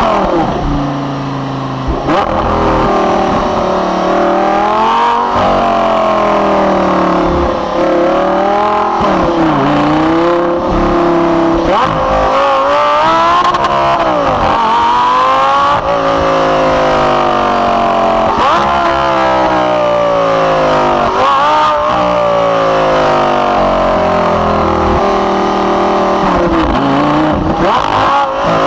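Lamborghini Gallardo LP560-4's 5.2-litre V10 engine accelerating hard again and again, its pitch climbing through each gear and dropping sharply at every shift. Several quick dips and rebounds in pitch from throttle blips on downshifts.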